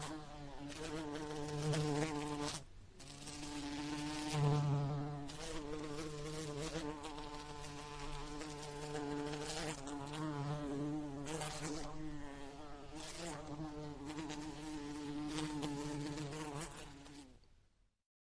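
House fly buzzing in flight, a steady wing-beat buzz that wavers in pitch and loudness as it moves. It cuts out briefly about three seconds in and fades away near the end.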